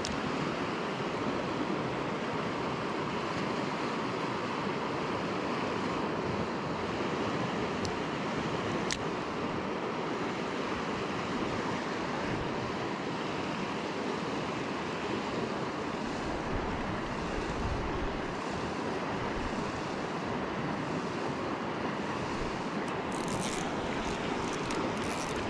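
Steady rush of a fast river running over rapids, with a couple of faint clicks about eight and nine seconds in.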